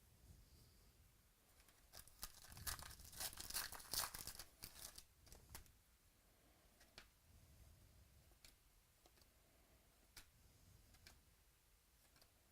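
A trading card pack wrapper being torn open and crinkled, a burst of crackly rustling from about two seconds in to past the middle. Then a few light, separate clicks of cards being handled.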